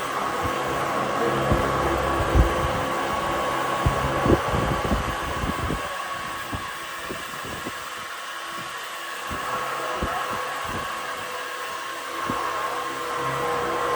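A small motor runs with a steady whine and hiss, like a blower or power tool, while irregular knocks and clicks of work come through, mostly in the first half.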